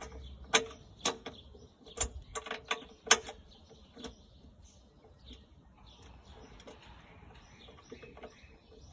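Scattered sharp clicks and knocks of lawn mower parts being handled and fitted, as the start handle is hooked onto the handlebar and tightened; several in the first four seconds, then only faint ticks.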